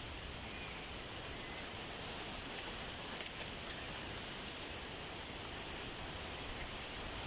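Steady rushing of a stream or waterfall, with one sharp click about three seconds in.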